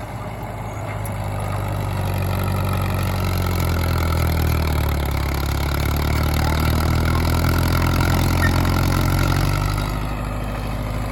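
Caterpillar D4 crawler bulldozer's four-cylinder diesel engine running steadily under working load, getting louder about two seconds in and easing off again near the end.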